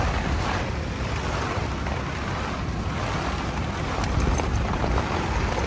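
Strong storm wind blowing in gusts and buffeting the microphone with a low rumble.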